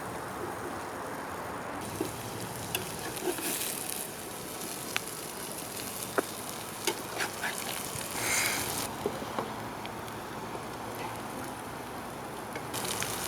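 Food frying in a pan over a campfire: a steady sizzle with scattered sharp pops and crackles, swelling briefly about eight seconds in.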